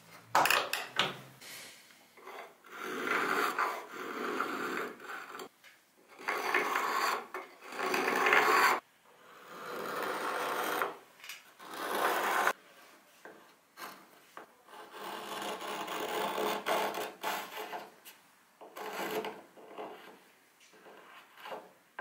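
Small spokeshave shaving the curved edge of a clamped wooden blank: about seven scraping strokes, each one to three seconds long, with short pauses between.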